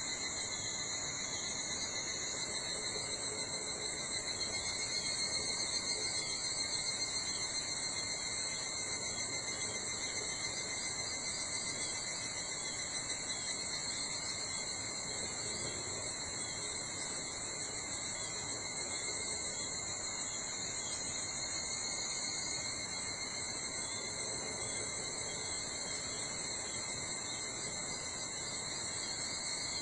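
A steady insect chorus, several high-pitched insect songs at different pitches going on unbroken, over a soft forest background.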